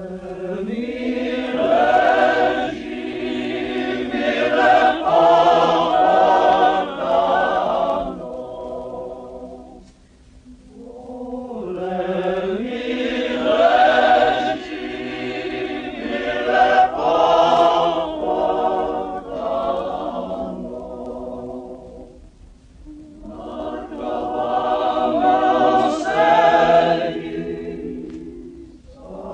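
Male chorus singing a Macedonian song in three long phrases, with short pauses between them, from an old album recording.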